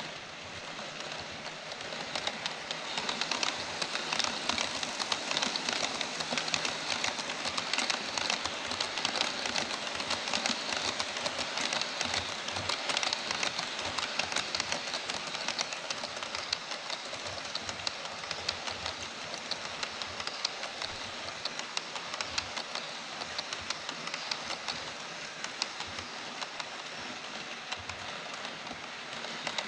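HO scale model freight train, an EF66 electric locomotive hauling Taki 43000 tank wagons, running on sectional track close by. Its wheels roll steadily and click over the rail joints, and the sound gets louder about two seconds in as the train comes alongside.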